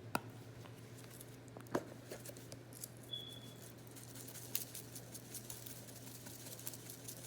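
Salad Supreme seasoning being shaken from its shaker onto pasta salad: faint scattered ticks and patter of granules, more frequent in the second half, over a faint steady low hum.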